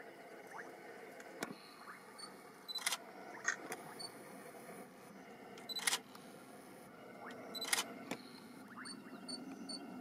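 Camera shutter firing in three short bursts of clicks, about three seconds in, about six seconds in and again near eight seconds, over a steady faint outdoor background.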